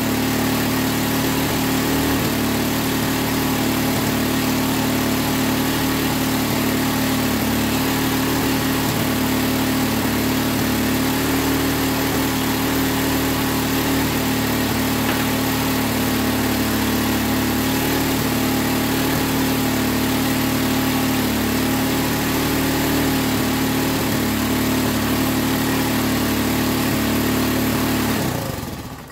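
Linhai ATV engine, mounted bare in the stripped frame, idling steadily with a constant hum, then cutting out suddenly near the end as the spark plug cap is pulled off to stop it.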